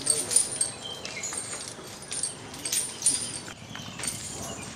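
Iron chains on an elephant clinking and jangling irregularly as it moves, with short metallic rings, loudest in the first second and again about three seconds in.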